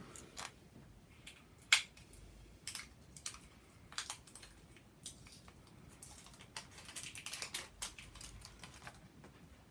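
Packaging around a roll of washi tape being opened by hand: irregular small crackles and clicks of plastic wrapping, the loudest about two seconds in.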